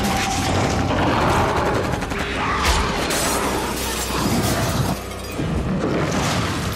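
Film action sound mix of a werewolf attack: a rapid run of crashes and impacts with glass shattering, over a music score.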